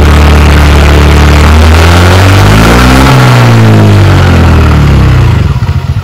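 TVS Ntorq 125 scooter's single-cylinder four-stroke engine running and being revved, its pitch rising to a peak and falling again, then dropping back toward idle near the end. It is a test run after a clutch-side repair, a new bearing fitted on a worn shaft that had been causing a tapping noise.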